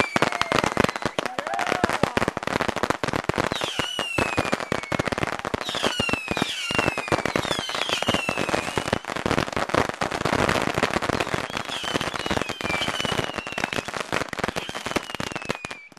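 A box packed with bottle rockets firing off en masse: a dense, continuous crackle of pops and bangs, with several whistles falling in pitch.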